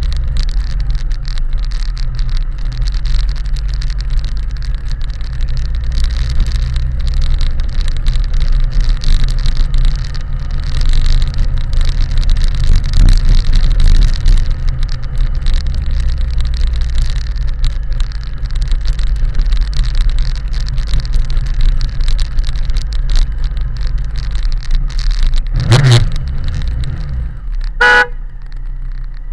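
BMW K1100LT motorcycle's inline-four engine running steadily at low speed, a constant low drone. Near the end comes a sharp thump, then a short horn beep, and the engine note falls away.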